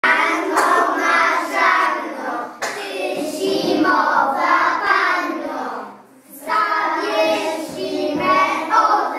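A group of young children singing together in unison, with a short break in the phrase about six seconds in.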